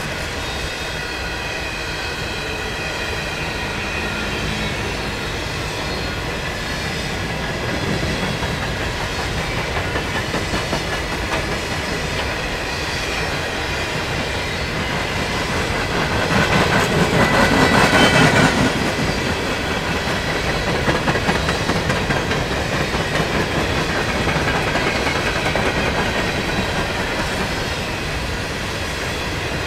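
Canadian Pacific freight train's covered hopper cars rolling past: a steady rumble of steel wheels on rail with a rhythmic beat through much of it. It swells louder for about two seconds a little past the middle.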